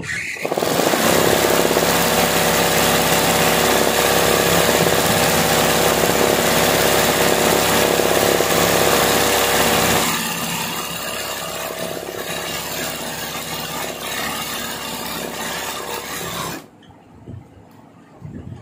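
Sewing machine stitching free-motion embroidery on fabric held in a hoop, the needle running rapidly and steadily. It becomes quieter about ten seconds in and stops about two seconds before the end.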